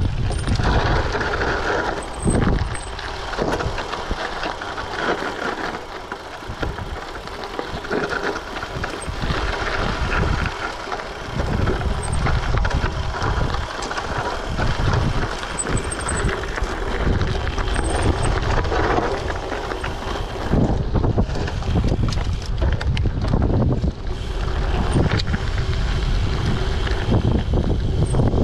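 Giant TCX gravel bike on 38 mm WTB Riddler tyres ridden over a rough dirt trail: steady tyre rumble with frequent rattles and knocks as it goes over bumps, and wind on the microphone.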